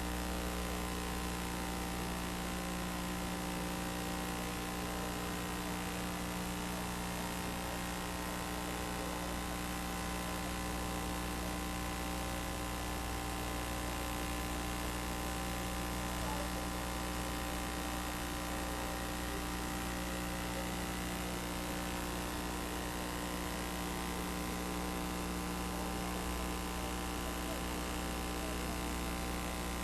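Steady electrical hum, unchanging throughout, with a layer of hiss.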